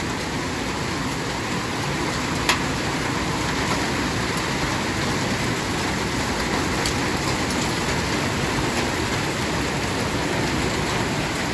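Heavy rain drumming steadily on a porch roof, with hailstones landing among it: one sharp knock about two and a half seconds in and a few fainter ticks later.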